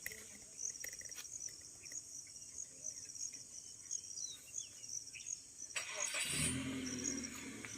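Crickets chirping steadily in short, evenly repeating high pulses. About six seconds in, a louder sound with a low, shifting pitch rises and fades over roughly a second and a half.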